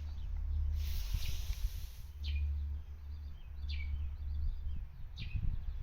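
A bird calling over and over, each call a short sharp note falling in pitch, about once every second and a half, over a steady low rumble. A brief hiss rises about a second in.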